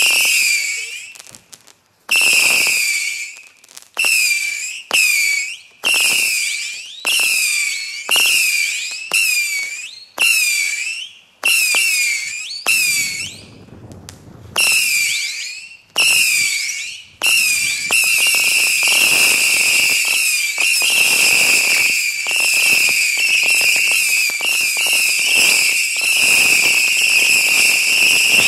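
Breeschoten Colonnade 300 firework battery firing a rapid series of whistling shots. Shrill whistles come one after another about once a second. From about 17 seconds in they overlap into one continuous whistle.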